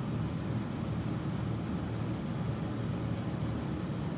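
Steady low room rumble and hiss with no distinct events, like ventilation running in a small room.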